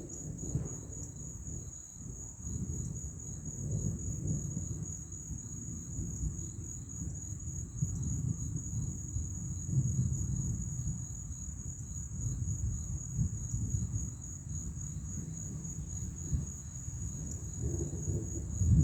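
Crickets or similar night insects chirping in a steady high trill that pulses about three times a second, over a continuous low rumble that swells and fades, typical of distant thunder rolling during a thunderstorm.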